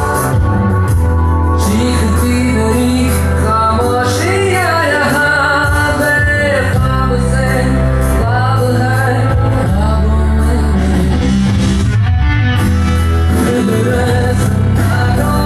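A song with singing over a steady bass beat, played loud.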